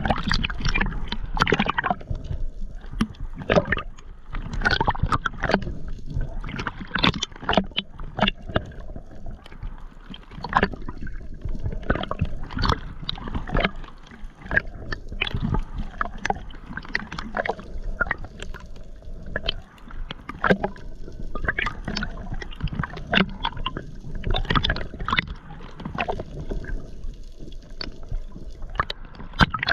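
Water sloshing and gurgling close to the microphone, with many irregular splashes and knocks.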